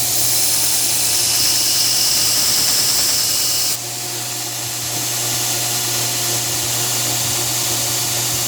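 2x72 belt grinder running steadily, with the high hiss of a hardened knife blade being ground against the belt. Near the middle the hiss cuts off suddenly as the blade comes away, and the grinder runs on.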